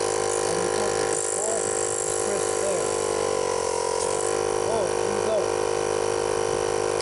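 Electric air compressor running with a steady, even hum, its pitch sagging briefly about four seconds in, with a short hiss about a second in.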